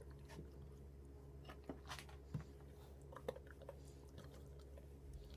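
Faint wet squelches and sharp little clicks of hands rubbing butter seasoning mix into a raw turkey, a handful of separate smacks over a steady low hum.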